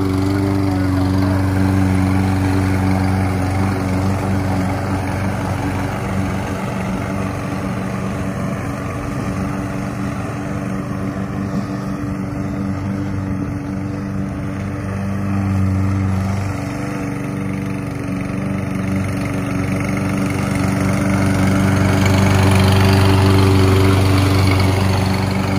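Briggs & Stratton single-cylinder engine on a Toro 22-inch Recycler walk-behind mower running steadily at cutting speed while it mows grass, with the engine note holding an even pitch. It is loudest in the last few seconds as the mower passes close.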